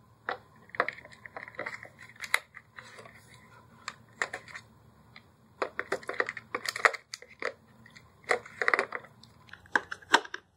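Plastic clicks, taps and rustling as a battery pack and its wired connector are worked into the battery compartment of a cordless vacuum. The sounds come in several short irregular clusters.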